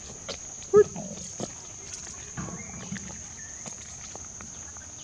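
A macaque gives one short, loud call about a second in, over a steady high-pitched hum.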